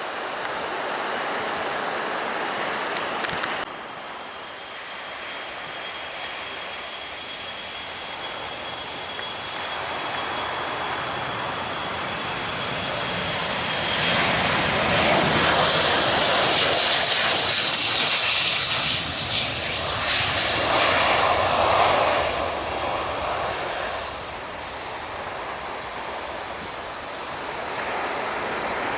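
Aircraft engines, with a thin steady whine that builds about halfway through to a loud passage of high engine whine lasting several seconds, then dies away.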